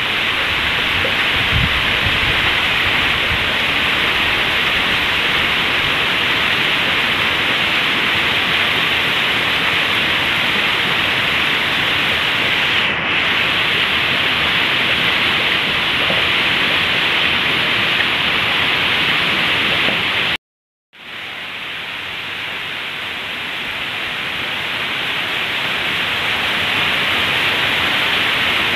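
Heavy rain falling steadily on a lawn and trees: a dense, even hiss. It cuts out for about half a second about two-thirds of the way through, then comes back softer and slowly swells to full strength.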